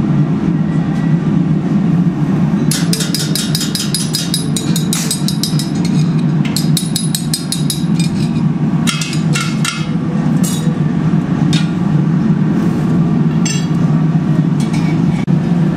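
Steady low roar of a fired glassworking furnace. Over it, a metal tool taps quickly and repeatedly on the steel rod and stand holding a glowing glass bead for a few seconds, then strikes several single taps.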